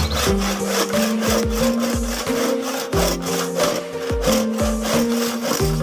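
Hand saw cutting through a wooden stick in repeated back-and-forth strokes, over background music with a steady beat.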